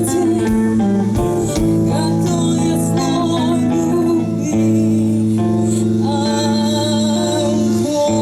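Rock band playing live: guitar with singing over held, sustained notes.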